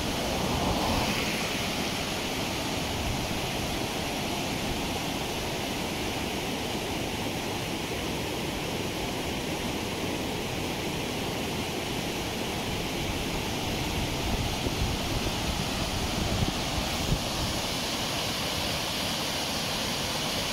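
White-water river rapids running high with spring meltwater below a mill weir: a steady, even rushing noise.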